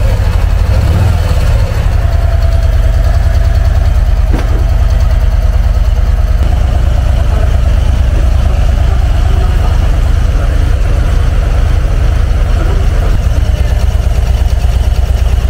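Brand-new 2023 Harley-Davidson Low Rider ST's Milwaukee-Eight 117 V-twin idling steadily on its first run.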